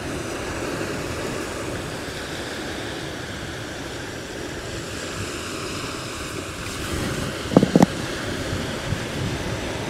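Ocean surf washing and wind on the microphone, a steady rushing noise. About three-quarters of the way through come two brief, sharp sounds close together.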